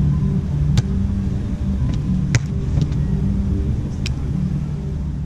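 Sharp slaps of hands striking a beach volleyball, three main hits about a second and a half apart, over a steady low rumble.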